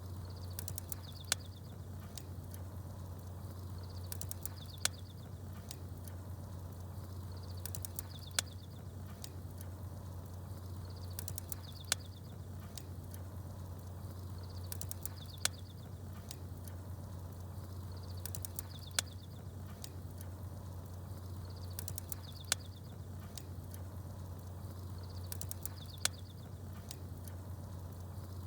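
Campfire crackling with small birds chirping over a steady low hum. The same pattern comes round about every three and a half seconds: one sharp pop and a burst of high chirps each time.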